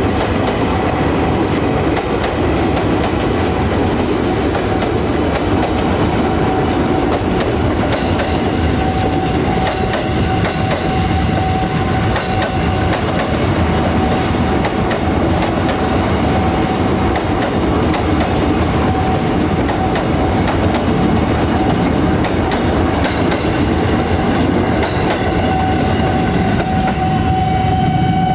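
JR 205-series electric commuter train running past, its wheels clattering over the rail joints in a steady rumble. A steady high tone grows louder in the last few seconds.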